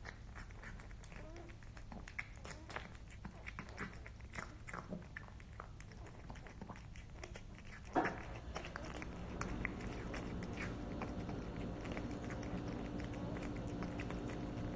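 A cat chewing and biting at a chunk of food in a metal dish: a run of short, irregular chewing clicks. About eight seconds in comes one sharp knock, the loudest sound. Soon after, a steady low hum sets in under the chewing.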